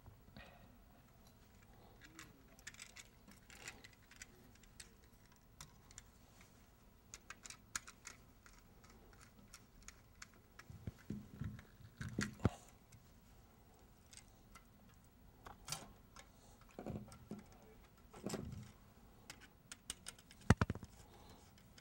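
Screwdriver turning the terminal screws of an occupancy-sensor light switch while its wires are fastened, with scattered small clicks, scrapes and soft handling knocks; the sharpest clicks come about halfway and near the end.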